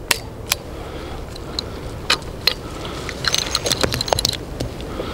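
Chiappa Rhino .357 Magnum revolver being handled: a few separate sharp clicks, then, about three seconds in, a quick run of clicks and light metallic clinks as the cylinder is swung open and the spent brass cases are ejected.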